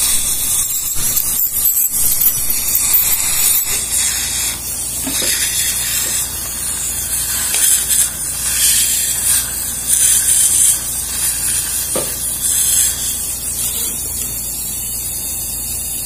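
Dental suction tube hissing steadily at the patient's mouth during a dental procedure, swelling and easing a little as it is moved.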